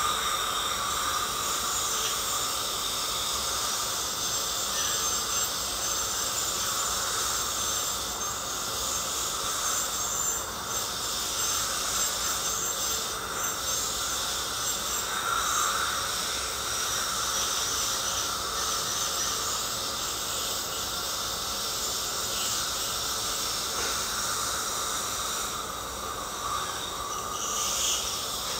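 Ultrasonic dental scaler running steadily, a high whine with the hiss of its water spray, as its tip works tartar off the inner side of the lower front teeth.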